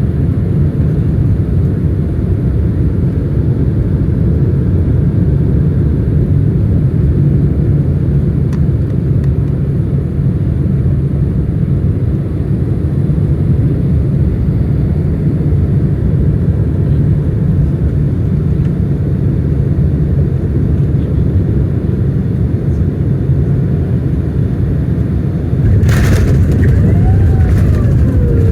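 Boeing 767-300 airliner landing: a loud, steady jet roar, then a sudden rattling jolt near the end after which the roar grows louder, typical of touchdown.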